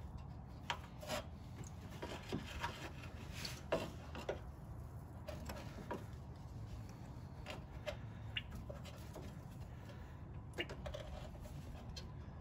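Faint, scattered rubbing and small clicks of a radiator drain petcock being pushed into the radiator's drain port and turned by hand until it seats.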